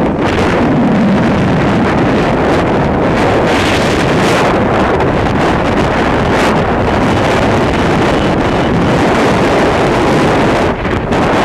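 Loud, steady wind rushing over the microphone as the camera moves along a road at speed.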